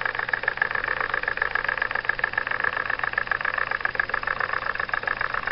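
Jensen No. 55 live steam engine running steadily, belt-driving a small novelty coffee grinder, with a fast, even clatter from the engine and grinder mechanism.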